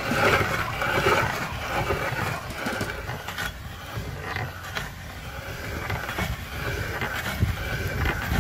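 Hand-cranked aluminium meat grinder being turned, grinding and scraping with irregular clicks and squelches as sugar-coated gummy candy is forced through its cutting plate.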